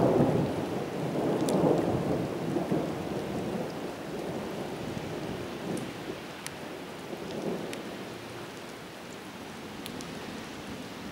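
Thunder rumbling, loudest in the first two seconds and slowly dying away, over the steady hiss of rain, with a few sharp ticks.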